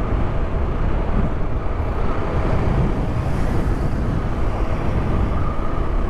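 Motorcycle riding at a steady speed: wind rumbling over a helmet-mounted mic, with the engine's steady hum underneath.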